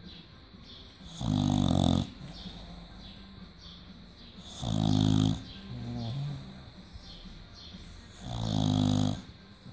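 British Bulldog snoring in its sleep: three loud snores about three and a half seconds apart, each lasting about a second, with a softer breath between the second and third.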